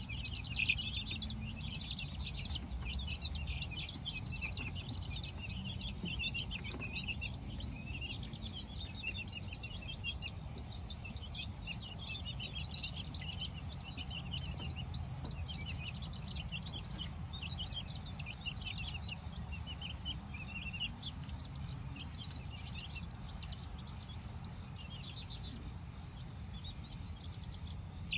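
A group of young chicks peeping continually in short, irregular high notes, with a steady high insect trill, likely crickets, behind them and a low background rumble.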